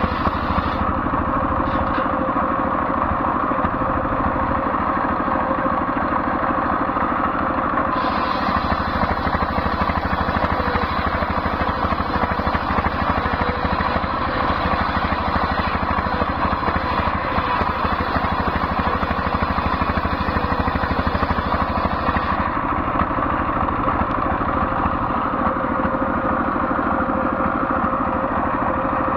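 Stationary diesel engine belt-driving a large circular saw blade, running steadily with a constant whine from the blade. From about 8 s to about 22 s the blade rips lengthwise through a coconut-wood plank, adding a harsher hiss on top.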